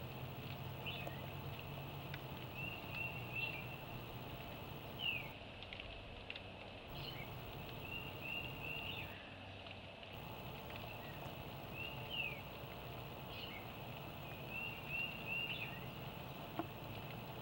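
A small bird singing a repeated phrase: a quick run of about three short notes, then a single falling whistle, recurring every several seconds. A steady low hum runs underneath.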